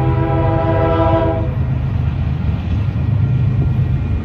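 Locomotive air horn sounding a chord of several notes that cuts off about a second and a half in, over the steady low rumble of a passing train.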